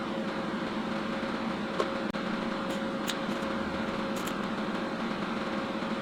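Steady mechanical noise with a faint constant tone and a few light ticks.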